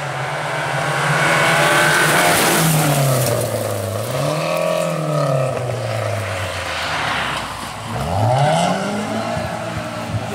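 Volvo rally car's engine pulling hard on a gravel stage as it passes, its pitch falling and rising with lifts and gear changes, with a steep rise in revs about eight seconds in. Tyres hiss and crunch on the loose gravel, loudest as the car goes by about two seconds in.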